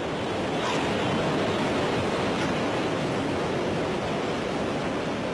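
Sea waves breaking and washing in as a steady surf noise that swells slightly and eases toward the end.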